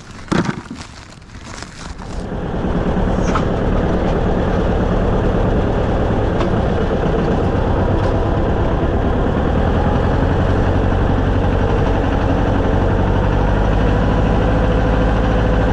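A farm vehicle's engine comes up in level over the first two seconds, after a single knock, then runs steadily.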